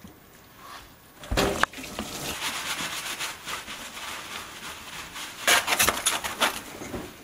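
Food-prep handling noises: a sharp clunk about a second and a half in, then a stretch of rubbing and rustling as the marinated pork belly is pressed into a metal tray. Near the end comes a burst of crackling as plastic cling film is pulled over the tray.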